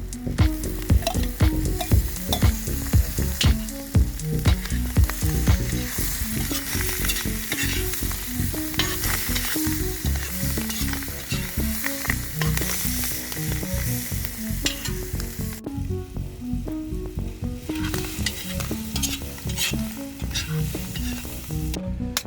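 A mussel omelet frying in a pan with a steady sizzle and stirring, the sizzle briefly dropping away about two-thirds of the way through.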